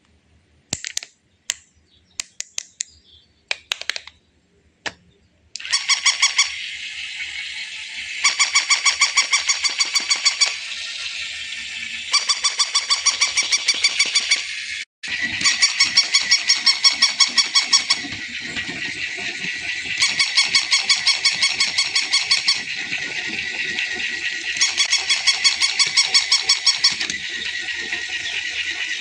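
Battery-operated toy's electronic sound: a few sharp clicks, then from about five seconds in a high, buzzy, rapidly pulsing tone that alternates between louder and softer phrases about every two seconds, briefly cutting out partway through.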